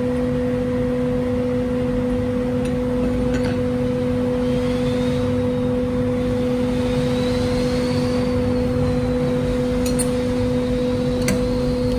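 Steady mechanical hum, a constant low drone, with a few light metallic clicks as wrenches work the collet nut to change the CNC router's bit.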